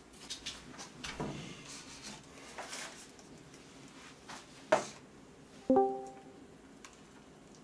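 Scattered light clicks and knocks of a plastic electric kettle and paper noodle cup being handled. About six seconds in comes a sharp knock that rings briefly with a short, plucked-sounding tone.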